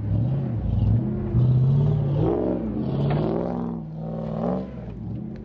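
Off-road 4x4's engine revving hard in repeated surges, rising and easing off several times, as it climbs a steep dirt bank with its wheels spinning. The revs climb once more and drop away near the end.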